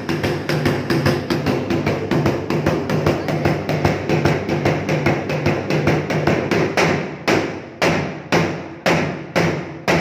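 Large barrel drum with a skin head beaten with two sticks in a fast, even stream of about five strokes a second. About seven seconds in it changes to heavy single strokes about twice a second, each ringing out.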